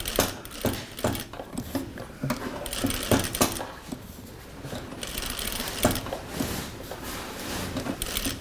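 Juki industrial sewing machine stitching in short stop-and-start runs, with irregular clicks and knocks between the runs as the stitching halts and the presser foot is lifted to turn the fabric for a spiral.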